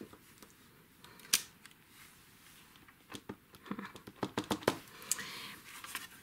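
A clear rubber stamp on an acrylic block being pressed onto card stock and lifted off: sharp plastic clicks and taps, the loudest about a second in and a quick run of them after three seconds, then the card is handled with a paper rustle near the end.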